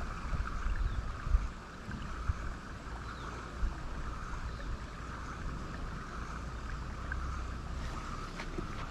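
Wind buffeting the microphone in an uneven low rumble, over a steady higher background hum, with a few faint knocks.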